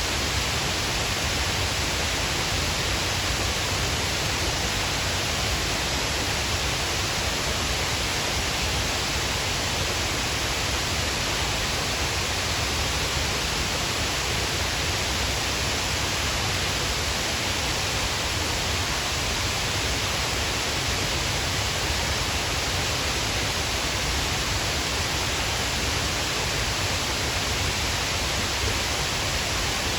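Shiraito Falls, a wide curtain waterfall of many thin streams, pouring steadily: a dense, even rush of falling water with no let-up.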